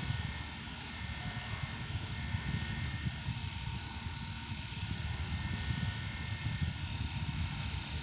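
Small homemade electric fan running steadily, its spinning blades blowing air with a low rumble and a faint steady whine.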